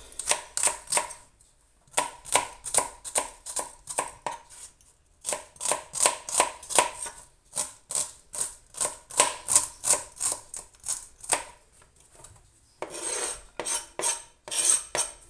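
Knife chopping a small onion in quick, even strokes, about three a second, in several runs with short pauses between them. Near the end there is a longer scraping sound.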